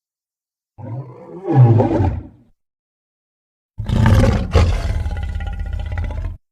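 Dragon roar sound effects: a short growling roar that swells and fades, then a longer roar of about two and a half seconds that cuts off suddenly, with silence between them.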